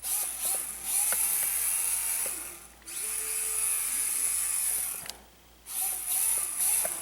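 Axial SCX24 micro RC crawler's electric motor and gear drivetrain whining at full throttle in high-speed mode, in runs of a couple of seconds that break off briefly about three seconds in and again for half a second past the five-second mark.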